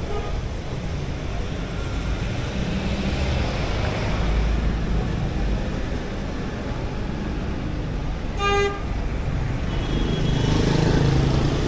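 Street traffic rumbling as motor vehicles pass, with one short horn toot about eight seconds in.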